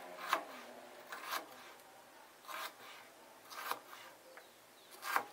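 Chef's knife slicing through an onion onto a plastic cutting board: about five separate cuts, roughly one a second.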